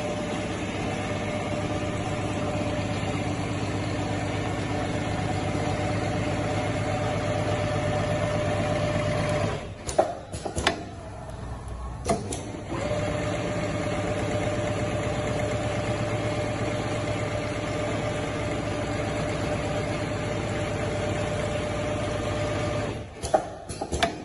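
Richpeace automatic pattern sewing machine running at speed, the needle stitching a zigzag seam in a rapid steady hum. About ten seconds in it stops for a couple of seconds with a few sharp clicks, then resumes; it stops again with clicks near the end.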